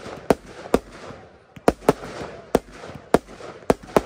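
Aerial firework shells bursting in quick succession, with about seven sharp reports in four seconds. Each report is followed by echo and the fizz of burning stars.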